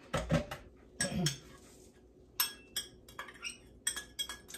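Containers and a utensil being handled at a kitchen sink: a couple of dull knocks, then a quick run of sharp, ringing clinks from about halfway through, as the lye is added to the ice cubes.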